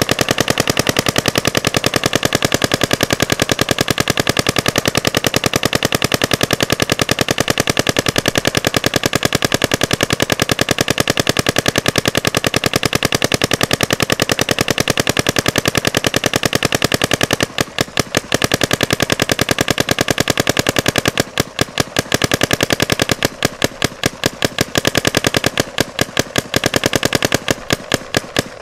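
Paintball marker firing a rapid, continuous string of shots, many per second. From about two-thirds of the way in, the fire breaks into short bursts with brief pauses.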